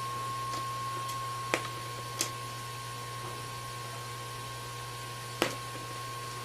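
Three sharp clicks of a tool against the MacBook Air's display bezel as it is worked loose, about one and a half, two and five and a half seconds in. A steady hum with a faint high whine runs underneath.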